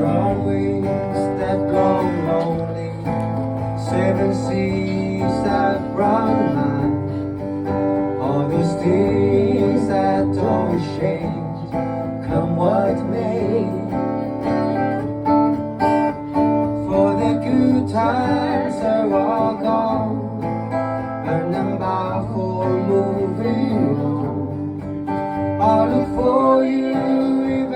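Strummed acoustic guitar playing a steady country-folk accompaniment, with a melody line above it that bends in pitch.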